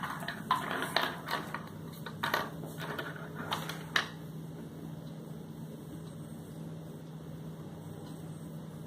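Plastic felt-tip pens clicking and clattering against each other and the table as a hand sorts through them, for about four seconds. After that only a steady low hum remains.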